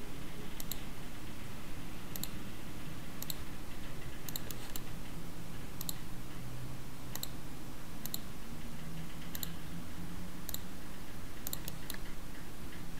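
Computer mouse button clicking, roughly once a second and now and then twice in quick succession: points being placed one by one along a curve in a drawing program. A faint low hum sits underneath.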